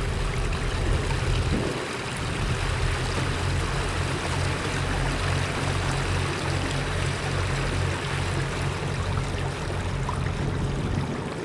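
A Leopard 48 catamaran's engine running with a steady low hum while motoring, with water rushing along the hull.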